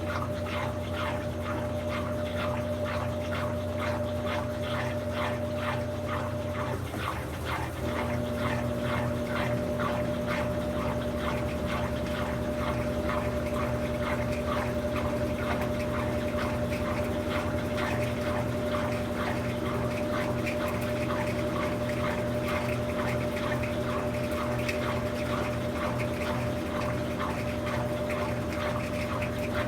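Brastemp BWK17 17 kg washing machine running mid-cycle: a steady pump hum with water rushing and a rhythmic swish a few times a second. The hum shifts about seven seconds in.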